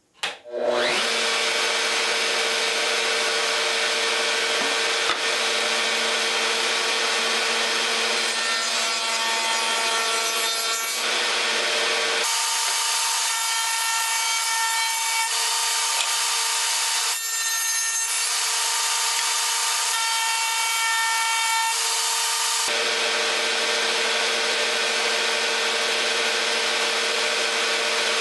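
Table-mounted router with a 3/8-inch quarter-round bit running at speed, rounding over the top edges of cedar slats. It starts up just under a second in and runs steadily with a constant hum; its tone changes from about twelve to twenty-three seconds in while a slat is pushed through the cut.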